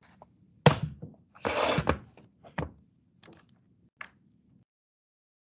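Desk and computer handling noises picked up by a laptop or headset microphone: a sharp click, a short rustle, then a few softer clicks. The sound then cuts off suddenly into total silence.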